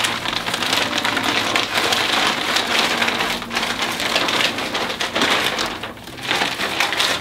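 Stiff gele head-tie fabric rustling and crackling loudly as it is pulled up and wrapped around the head, with a short lull about six seconds in.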